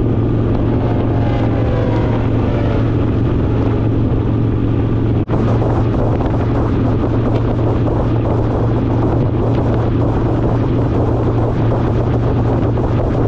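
Harley-Davidson Fat Boy's V-twin engine running steadily at highway cruising speed, with wind rushing over the bike-mounted microphone. A brief dip about five seconds in.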